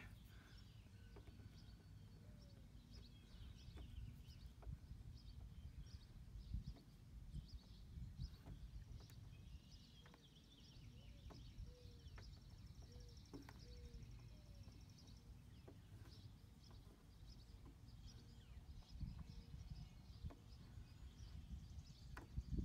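Quiet outdoor ambience: a low steady rumble with faint birds chirping now and then, and a few soft clicks.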